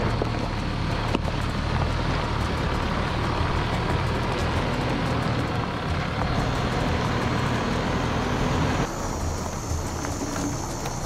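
Car driving: steady engine and road noise, with the higher part of the sound dropping away about nine seconds in.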